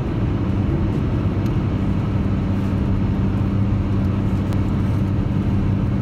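Car engine droning steadily with tyre and road noise, heard from inside the cabin while cruising at constant highway speed.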